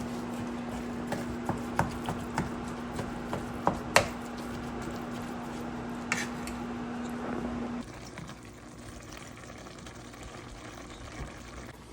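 Ground venison browning in a pan: a sizzling hiss with scattered clicks and scrapes of a utensil stirring the meat, the sharpest knock about four seconds in. A steady low hum runs underneath; the hum stops and the sizzle drops much quieter about eight seconds in.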